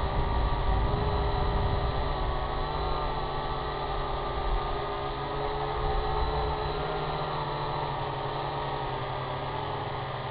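Syma X8HG quadcopter's four motors and propellers whirring in flight, several tones wavering up and down together as the throttle shifts. Under them a low rumble thins out about seven seconds in.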